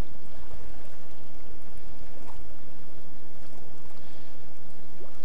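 Strong wind buffeting the microphone: a steady, loud rumble, with the choppy lake water beneath it.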